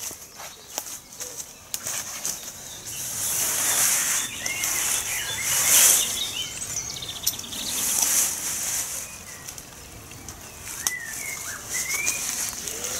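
Tent fabric rustling and swishing several times as the tent's poles are bent up and fitted into the corners and the inner is lifted, with a few light clicks near the start. Small birds chirp in the background.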